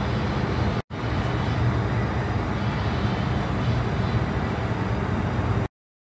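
Steady rumble of airport apron noise heard from inside the terminal, a low hum under a broad rush. It drops out for an instant just under a second in and cuts off abruptly near the end.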